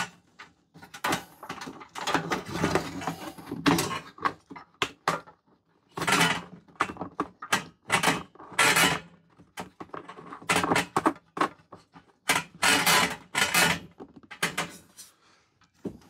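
Hands fitting a plastic ring and cables back onto the end of a Vevor 8 kW diesel heater's plastic housing: irregular scraping, rubbing and clicking of plastic parts, with short pauses between.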